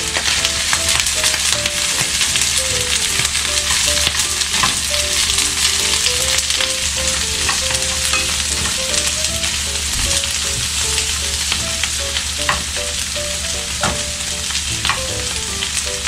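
Pork offal and cabbage sizzling in a frying pan as they are stir-fried, a steady frying hiss with occasional sharp clicks of tongs against the pan.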